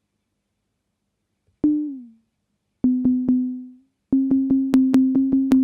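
Dave Smith Instruments Tempest playing short, low sine-wave notes, each starting with a click and dying away. About one and a half seconds in, a single note slides slightly down in pitch. Three quick repeats at the same pitch follow, then a fast run of about five or six notes a second.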